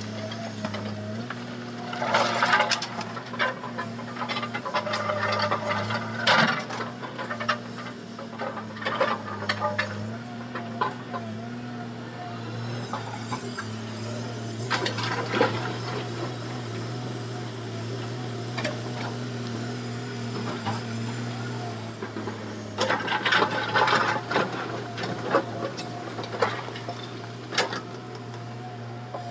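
Komatsu excavator's diesel engine running with a steady low hum that shifts slightly in pitch now and then. Over it come several spells of clattering and scraping a few seconds apart.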